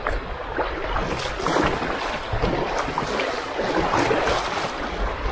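Rushing, splashing river water as an inflatable kayak runs down a small weir step, the water noise getting louder about a second in.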